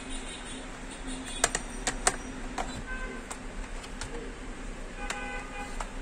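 Snap clips of a Dell Vostro laptop's plastic bottom cover popping loose as it is pried off with a plastic opening tool: a handful of sharp clicks, the loudest about a second and a half and two seconds in.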